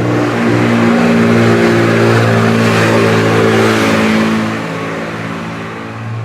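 Loud truck driving past, its engine running steadily under a rushing road noise that builds to a peak midway and then fades over the last couple of seconds.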